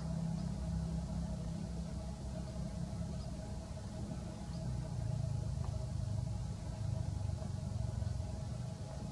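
Steady low hum of an idling engine, with a few faint high chirps.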